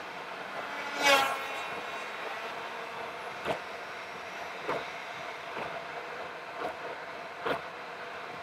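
Road and engine noise from a car driving along a multi-lane road, sped up fourfold: a steady rushing hum with a brief loud rising whine about a second in, then dull thumps about once a second.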